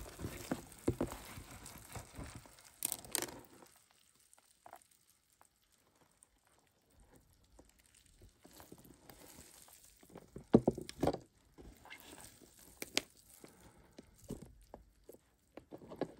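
Hands working through red wigglers and moist bedding in a plastic tray: soft, irregular rustling and rubbing with small clicks, a quiet spell a few seconds in, and a cluster of sharper knocks about ten and a half seconds in, the loudest moment.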